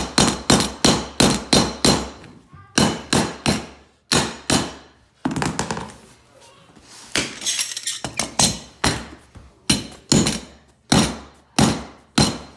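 Hammer tapping a flooring tool to knock luxury vinyl planks tight and lock the joints: runs of quick, sharp taps, about three a second, with short pauses between the runs.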